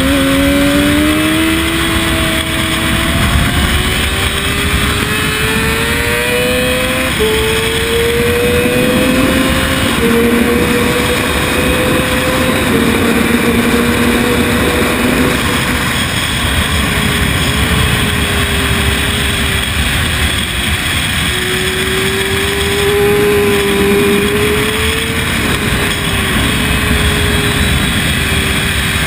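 Sport motorcycle's engine heard from on board at speed: its note climbs in pitch with several short dips as it shifts up, eases off a little past halfway and holds lower, all under steady wind rush.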